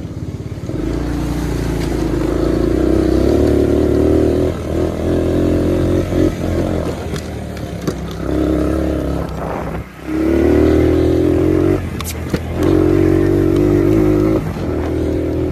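Four-wheeler (ATV) engine running under throttle as it is ridden, the revs swelling and dropping off several times. Two sharp clicks about twelve seconds in.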